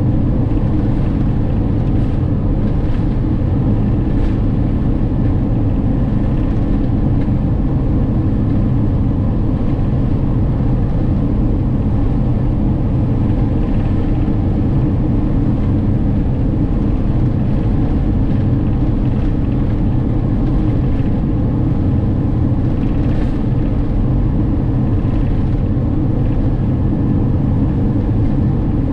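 Camper van cruising steadily on an open sealed road: a continuous low rumble of engine and tyre noise with no change in speed.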